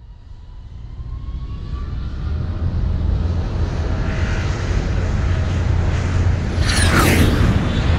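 Blue Angels jet flying by: the roar of the jet engine builds steadily as it approaches, and a whine drops sharply in pitch about seven seconds in as it passes.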